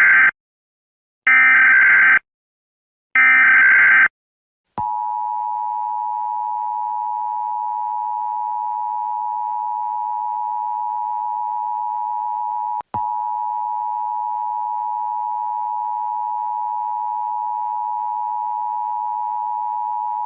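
Emergency Alert System header: three short bursts of SAME data noise about a second apart, then the steady two-tone EAS attention signal, which holds with a brief dropout about two-thirds of the way through. This is the start of an EAS alert, before the spoken message.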